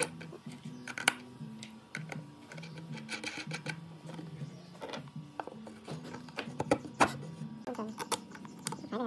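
Small metal clicks and taps of a steel bolt, washers and ball bearings being handled and slid together by hand, the sharpest about a second in and near the end, over soft background music.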